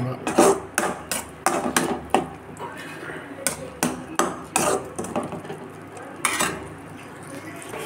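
Perforated metal skimmer ladle scraping and knocking against an aluminium kadai while stirring a thick mutton liver fry: a quick, irregular run of sharp clanks that dies away about six and a half seconds in.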